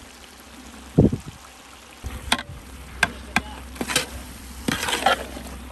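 A ladle knocks and scrapes against a large aluminium cooking pot while brinjal masala is stirred, a string of sharp clicks over a steady hiss. There is a dull thump about a second in.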